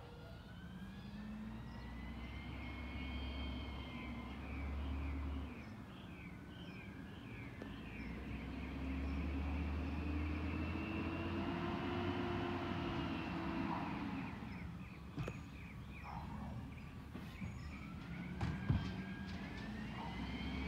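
Peterbilt 320 garbage truck working down the street: its diesel engine revs up and down twice, with a high whine that rises and falls along with it. Two sharp bangs come near the end.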